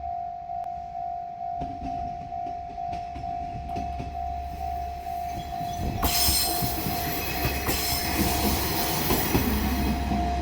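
Japanese level-crossing warning bell ringing in steady rapid pulses. A diesel railcar approaches with a building rumble, and about six seconds in it passes the crossing loudly, with rattling wheel and rail noise.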